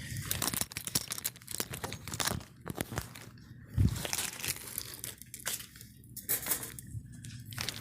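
Irregular crinkling and rustling noises, with a low thump about four seconds in.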